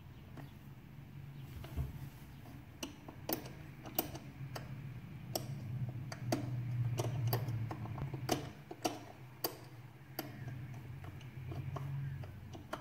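Combination wheels of a Diyife wall-mounted key lockbox clicking irregularly as a finger rolls them to line up the code, over a low steady hum.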